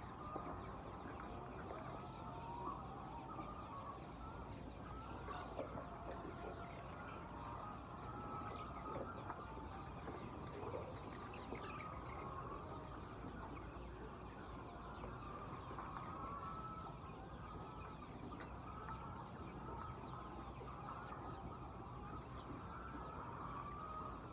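A large flock of laying hens clucking and calling at once, a continuous overlapping chatter, over a steady low hum.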